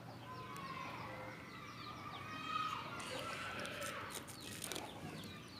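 Chickens clucking and chirping in the background, a busy mix of short rising and falling calls, with a few faint clicks about three seconds in.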